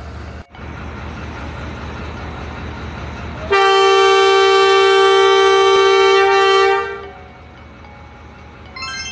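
Diesel locomotive horn sounding one loud long blast of about three seconds, over a steady low diesel engine rumble, as the train sets off. A short run of high chime notes sounds near the end.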